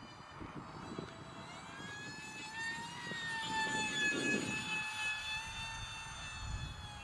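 Whine of the E-flite UMX A-10's 30mm electric ducted fan as the RC jet flies past. The high whine rises in pitch over the first few seconds and then holds, with a rush of air swelling about four seconds in as the jet passes closest.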